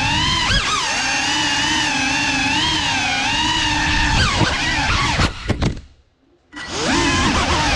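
The brushless motors and ducted props of a GEPRC CineLog 35 cinewhoop drone whine loudly, the pitch wavering up and down with the throttle. About five seconds in comes a quick run of sharp clicks, like the props striking something. The motors then cut out for about half a second and spool straight back up.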